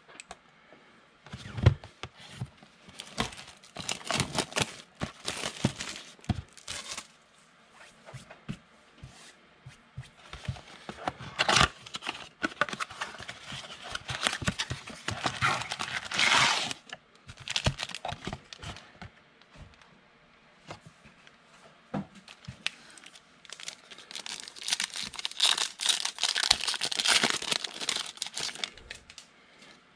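Cardboard trading-card box being torn open, then a plastic card-pack wrapper crinkling and tearing as it is opened; irregular rips and crackles, with the longest stretches about halfway and near the end.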